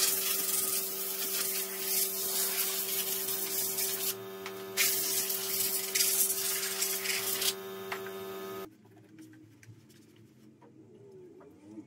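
Compressed-air blow gun blasting air over a wet car engine to dry it: two long hissing blasts with a short break just after 4 s, over a steady hum. A little before 9 s the sound drops to the faint rubbing of a microfibre cloth wiping the engine bay.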